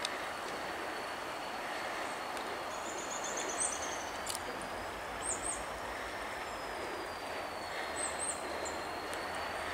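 Steady rumbling hiss of an approaching EMD GP35 diesel locomotive, still some way off, with birds chirping a few times over it, the longest a short trill about three seconds in.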